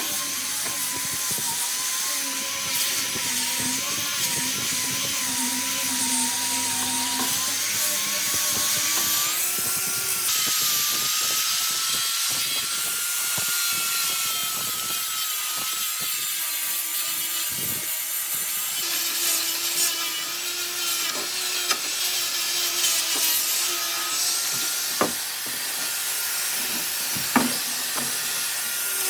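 Electric power tool working wood: a steady motor whine that wavers in pitch as the load changes, over a rough grinding or sanding noise. A couple of sharp knocks come near the end.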